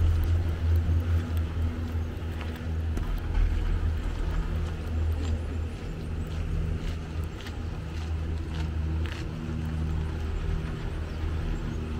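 Steady low mechanical hum of an aerial cable-car line running overhead, with a few light clicks in the middle seconds.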